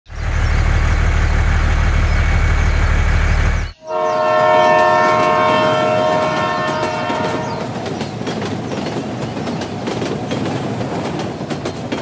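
A train: a low steady rumble cuts off suddenly a few seconds in, then a multi-tone train horn sounds for about three and a half seconds and fades. The train runs on after it, its wheels clattering on the rails.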